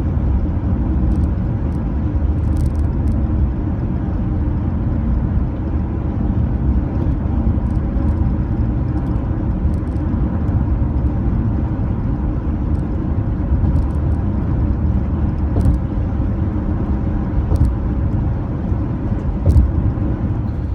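Steady road and engine noise inside a car cabin at highway speed, a low rumble with a faint hum and a few light ticks.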